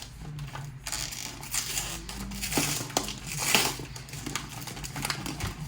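Crinkling and rustling of a Goldfish crackers snack bag being handled, in irregular crackles.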